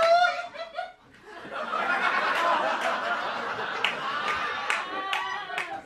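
Theatre audience laughing: a short vocal sound at the start, then a swell of crowd laughter that builds about a second and a half in and holds.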